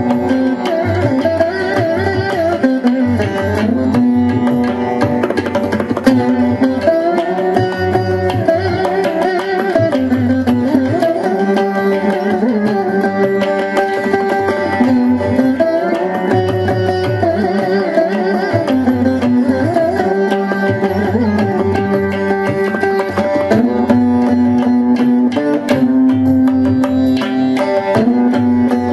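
Carnatic veena music: a plucked veena playing a melody with gliding, bending notes over a percussion accompaniment.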